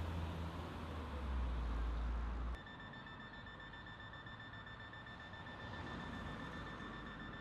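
A car driving past on the street with a low rumble, cut off suddenly about two and a half seconds in. After that a steady high-pitched whine sounds over faint background hiss.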